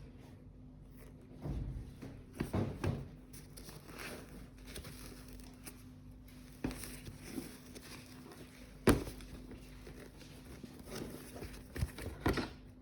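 Handling noises from sneakers and their packaging being picked up and moved: scattered rustles and soft knocks, with one sharp knock about nine seconds in and a few more knocks near the end, over a steady low hum.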